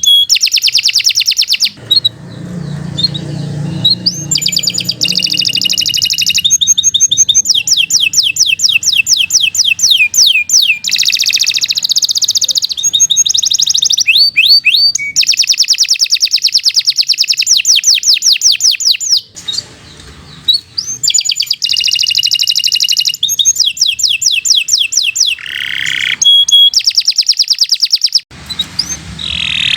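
Domestic canary singing a long, continuous song of fast rolling trills and rapid series of repeated high notes, with only short breaks between phrases.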